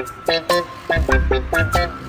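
Background music: an upbeat tune of short, quick pitched notes over a pulsing bass.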